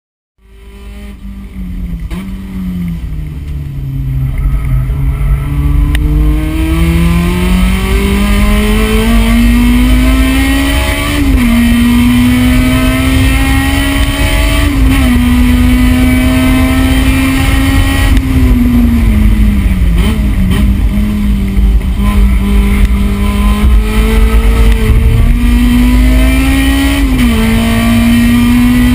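A supercharged Honda S2000's four-cylinder engine at full throttle on track, heard from inside the cabin. It fades in, then revs climb steadily through the gears, each climb broken by a sharp drop at an upshift. About two-thirds through, the revs dip and pick up again.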